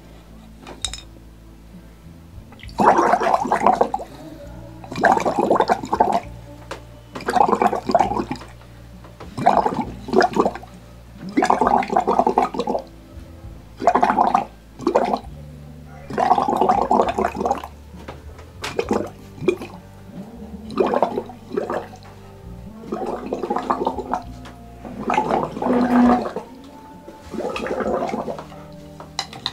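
Breath blown through a bamboo tube into a glass of water, bubbling in bursts about a second long, roughly every two seconds: the bolo bolo healing technique.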